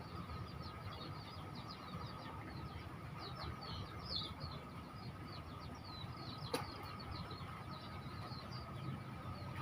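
Small birds chirping busily: many short, quick, high down-sweeping chirps, over a low steady rumble and a faint steady whine. A single sharp click about six and a half seconds in.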